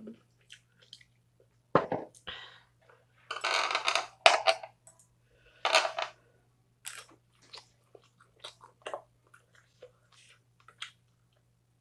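Close-up eating sounds: chewing and crunching of food, broken by scattered sharp clicks of chopsticks and a shot glass handled on the table, with a longer crunching stretch about three to four and a half seconds in.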